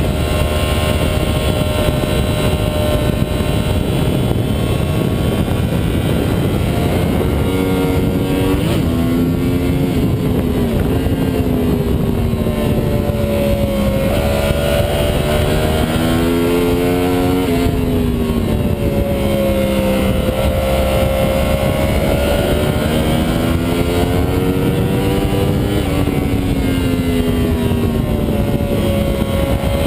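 2009 Yamaha R1's crossplane inline-four engine heard from on board under heavy wind noise, its pitch climbing and dropping back several times as the bike accelerates, shifts and brakes around the track.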